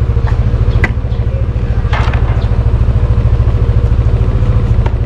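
Motorcycle engine idling with a steady, fast low pulse, close by. A couple of short clicks and rustles from a helmet being handled, about a second and two seconds in.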